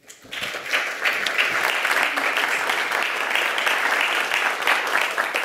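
Audience applauding, a steady patter of many hands clapping that starts a moment in and holds through.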